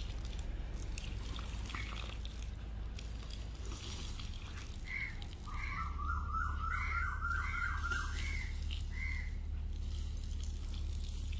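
Water running from a garden hose, over a steady low hum. About halfway through, a quick run of about eight short chirps is heard.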